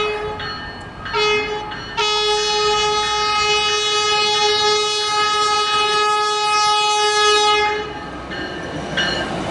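Train horn of an approaching River Line diesel light rail train, sounding one steady note: a blast that cuts off about half a second in, a short blast about a second in, then a long blast of nearly six seconds that stops near the end.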